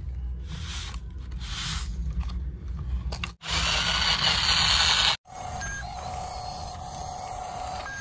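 Small electric motors of toy RC construction vehicles working in sand, in three short clips that cut off suddenly. The first is a low rumble with some swishes. The second is a loud rushing hiss. The last is a small motor whining steadily at one pitch.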